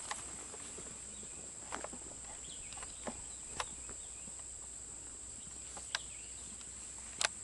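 Steady high-pitched insect buzz, typical of crickets, with about half a dozen faint, irregular clicks and knocks from handling gear.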